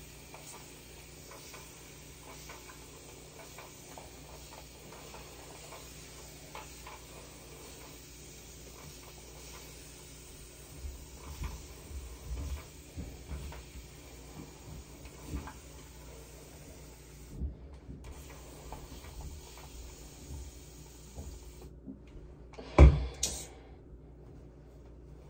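Faint spritzing and handling sounds of a hand spray bottle wetting hair, with a few soft thuds, and one sharp loud knock near the end.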